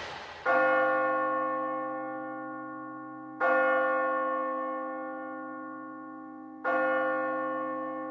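A deep bell tolling three times, about three seconds apart, each strike ringing on and slowly fading: the eerie ending of a horror buildup. A loud rushing swell dies away just before the first strike.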